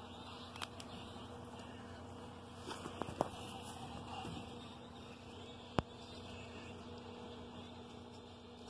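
A steady low buzzing hum, with a few light clicks and taps; the sharpest tap comes about six seconds in.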